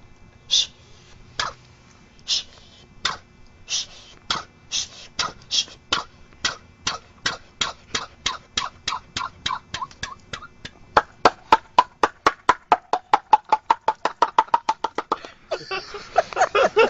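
A man mimicking an animal with his voice: a run of short mouth clicks that speeds up steadily from about one a second to several a second, the later ones becoming pitched and louder, ending in a rough vocal burst near the end.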